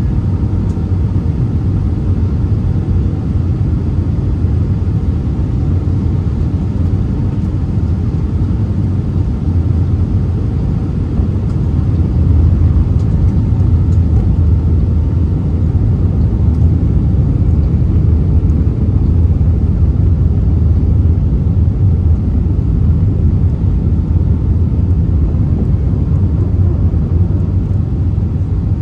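Cabin noise inside an Airbus A319-112 on approach: a steady low drone from its CFM56 engines and the airflow, growing slightly louder about twelve seconds in.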